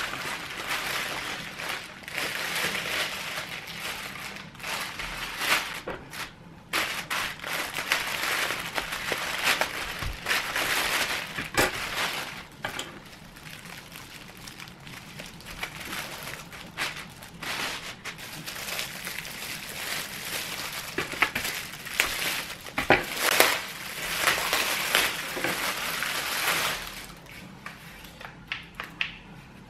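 Plastic mailer bag and plastic wrapping crinkling and rustling as a package is torn open and unwrapped, in long stretches, with a few sharp knocks and clicks of items being handled and set down on a table.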